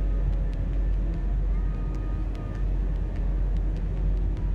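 Airbus A320-200 cabin noise during descent: a steady low rumble of the engines and airflow over the fuselage, with a faint high tone briefly in the middle and a few light clicks.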